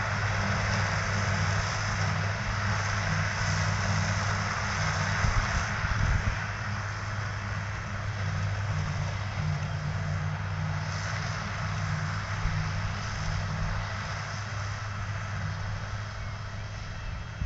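Claas Jaguar 870 self-propelled forage harvester cutting grass silage, its engine and chopper running with a steady drone together with the tractor hauling the trailer alongside. The sound slowly grows fainter as the machines move away.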